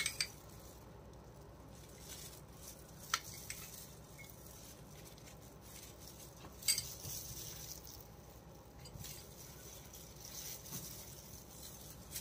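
Light clinks and scrapes of a metal spoon against a glass bowl and a steel basin as cream is spooned out, a few separate clicks about 3 seconds in and near 7 seconds, otherwise quiet.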